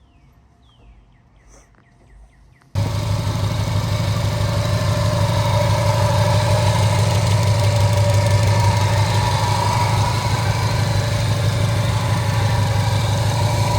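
Car engine running steadily at idle with a deep, even hum. It comes in suddenly about three seconds in, after a few quiet seconds of faint clicks.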